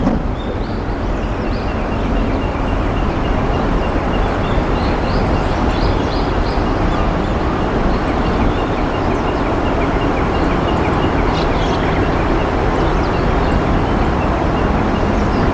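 Steady, loud rushing background noise with no pauses, with a faint run of short, evenly spaced high chirps or ticks over it for the first half or so.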